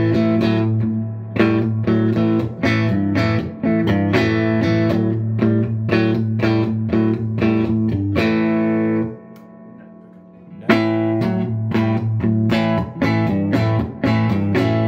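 Telecaster played through a Fender '64 Deluxe Reverb hand-wired tube amp on the middle pickup setting, strumming and picking chords with a little breakup. The playing pauses briefly about nine seconds in, then resumes.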